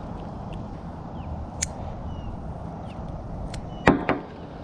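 A few sharp clicks and knocks, the loudest about four seconds in, as weeds and debris are pulled off a magnet-fishing magnet, over a steady low background rumble.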